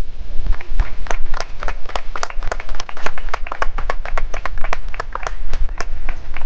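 A small group of people clapping: distinct, uneven claps, several a second, rather than a dense wash of applause.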